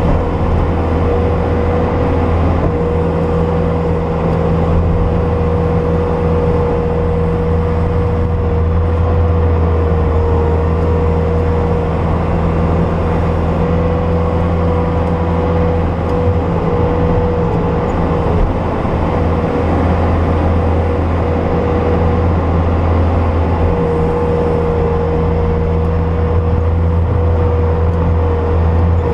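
Bobcat S250 skid steer's diesel engine running steadily under work, with a steady high whine over the deep engine hum and no sharp knocks or pauses.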